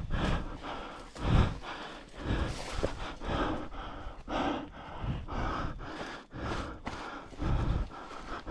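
A hiker breathing hard after a steep uphill climb: heavy breaths about once a second, mixed with footsteps on the trail.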